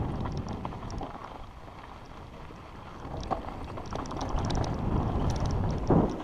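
Mountain bike rolling fast down a rocky dirt trail: wind rushing over the microphone, tyres crunching on gravel and the bike rattling with light clicks. The noise eases for a moment about two seconds in, then builds again, and a heavy thud from the bike hitting a bump comes near the end.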